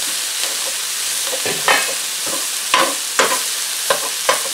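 Italian sausage and mushrooms sizzling steadily in a frying pan, with a metal spoon scraping and knocking against the pan several times as the meat is stirred and broken up.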